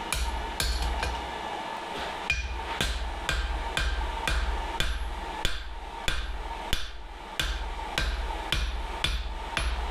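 Blacksmith's hand hammer, a freshly made dog's head hammer, striking steel on an anvil in a steady rhythm of about two blows a second, each with a short metallic ring, with a brief pause early on.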